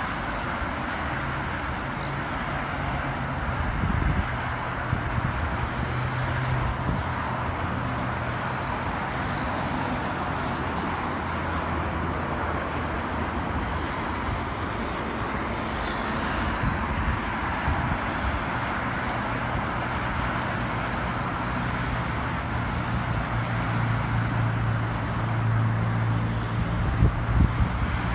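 Road traffic noise: a steady rush with a low engine drone that swells twice, loudest near the end, and faint high whines rising and falling now and then.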